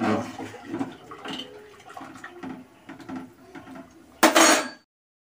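Metal ladle stirring rice in hot water in an aluminium pot, with light clinks against the pot and watery swishing. About four seconds in, a long metal spatula clatters loudly onto the steel stovetop, and the sound cuts off suddenly just after.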